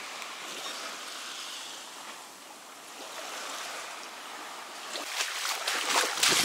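Shallow water lapping and trickling against a kayak's hull as it glides in toward a sandy beach. About five seconds in it gets louder, with irregular scraping and splashing as the kayak reaches the shore.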